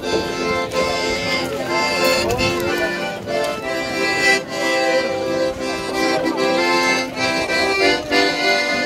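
Accordion music: a melody played over held chords.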